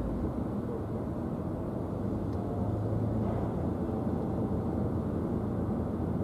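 Steady low rumble of a Red Funnel car ferry under way across open water, an even drone with no sudden sounds.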